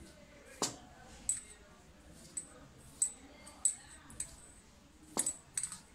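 Hand mixing oil into flour in a steel bowl: faint rubbing of the flour with scattered light metallic clicks, about eight in all, each short and sharp.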